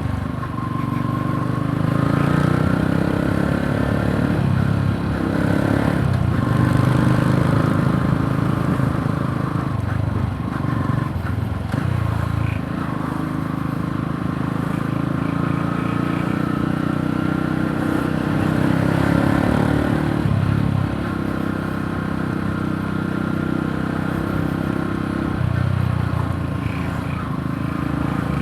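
Yamaha YTX 125's single-cylinder four-stroke engine running on the move, its note rising and dropping several times with throttle and gear changes.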